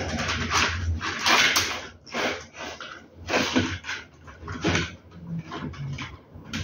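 Plastic rattling and scraping as hands handle a toothed plastic strip from a blind's headrail, in short irregular bursts over a low steady hum.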